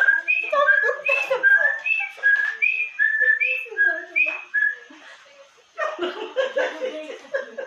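A person whistling a run of short notes that alternate between a higher and a slightly lower pitch, about two a second, for some five seconds.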